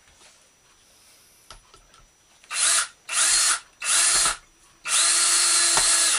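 Power drill driving a screw into wood in four short bursts of steady whine, after about two seconds of quiet; the last burst is the longest.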